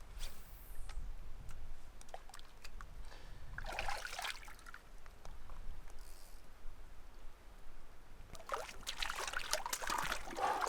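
Lake water splashing and trickling with scattered small clicks. There is a short splash about four seconds in, and busier sloshing in the last two seconds.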